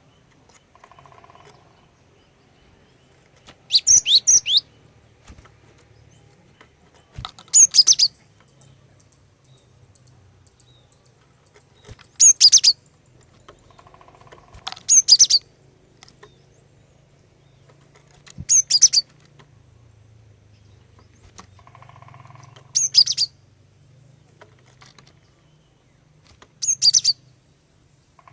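Female cinereous tit (glatik batu) calling: seven short bursts of quick, high chirping notes, one every three to five seconds, used as a lure call to draw males into calling.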